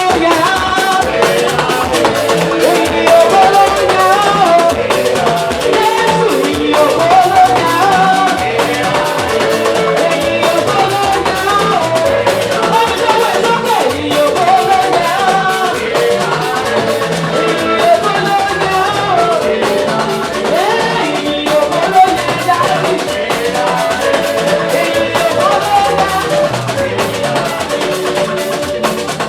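Live gospel band music: a drum kit keeps a steady beat under a wavering melody line.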